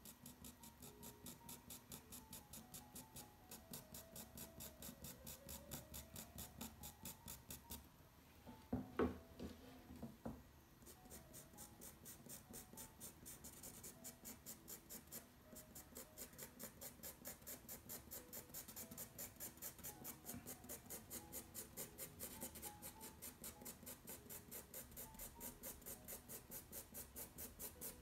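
Pencil strokes hatching across toned paper at a steady rhythm of about four strokes a second, pausing briefly about eight seconds in and again around fifteen seconds. A single thump lands about nine seconds in. Faint background music runs underneath.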